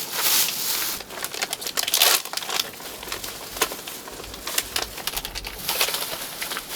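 Irregular crinkling and rustling noises, a loud one about two seconds in.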